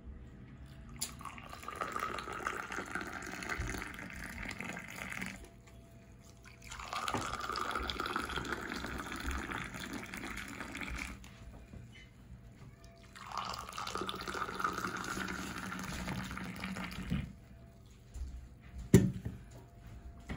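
Tea poured in a stream from a metal teapot into three glass tea cups, one after the other: three steady pours of about four seconds each with short pauses between them. A single sharp knock sounds near the end.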